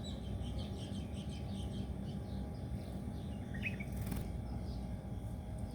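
Small birds chirping faintly in quick runs, with one short separate call about three and a half seconds in, over a steady low background rumble that is louder than the birds. A brief click comes a little after the call.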